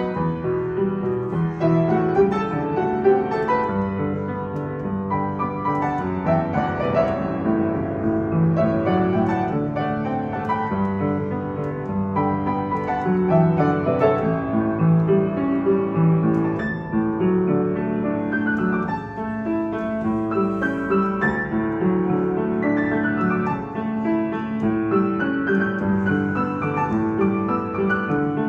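A 1987 Kawai KL-70W upright piano being played: a continuous passage of melody over chords, with notes overlapping and ringing into one another.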